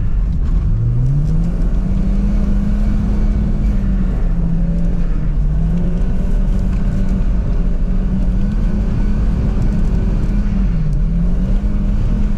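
Car engine revving up in the first two seconds and then held at high revs, dipping and climbing again a few times as the throttle is worked through slides on ice. A steady low rumble runs under it.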